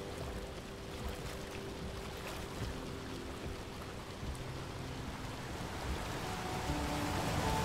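Steady wash of wind and rain noise with river water lapping at the rocky bank.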